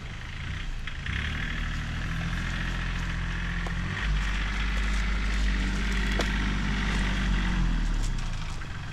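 A tractor engine running under load as it moves, growing louder about a second in and again around four seconds, then easing off near the end.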